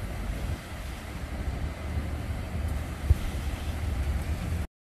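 Wind buffeting a phone microphone outdoors: an uneven low rumble, with a brief thump about three seconds in. The sound cuts off abruptly near the end.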